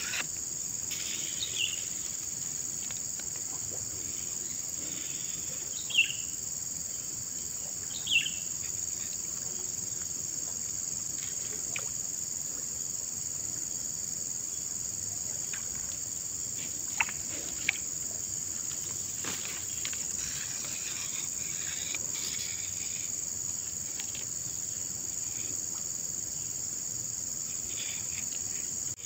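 Steady high-pitched chorus of insects, crickets or cicadas, with two short sharp chirps and a couple of light clicks over it.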